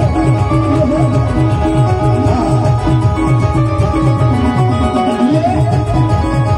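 Band music playing at full volume: a steady heavy beat under a melody, an instrumental passage without clear singing.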